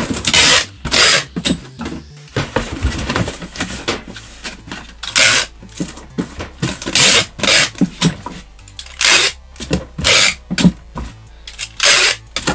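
Packing tape pulled off a handheld tape gun across a cardboard box: about nine short, loud pulls with pauses between them.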